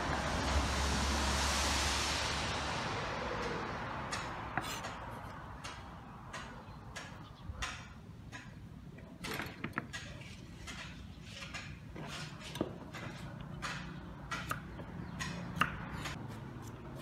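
Kitchen knife chopping lettuce and slicing cucumber on a round wooden chopping block: irregular sharp knocks of the blade striking the wood. Over the first few seconds a louder rushing noise swells and fades away.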